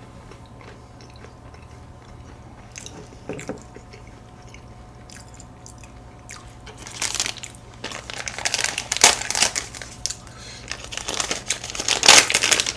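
Quiet chewing of a soft cookie, then from about halfway through, bursts of crinkling from a clear plastic cookie bag being handled and opened.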